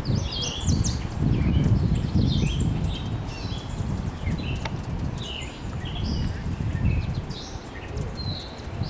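Songbirds chirping and trilling in many short calls throughout, over a loud, uneven low rumbling noise.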